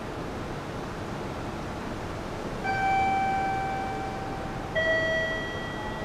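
Steady hiss of station concourse background noise, with two chime tones ringing out, the first about two and a half seconds in and a lower one about five seconds in, each fading slowly.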